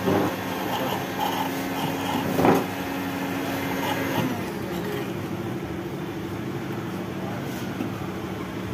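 Nescafé coffee vending machine running a dispense cycle: a steady motor hum as the powder canister feeds coffee into the mixing bowl. One tone in the hum cuts off about four seconds in, and there is a single knock about two and a half seconds in.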